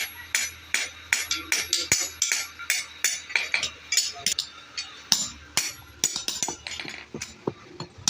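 Light hammer taps and metal clinks in an irregular run, several a second, each with a short bright ring.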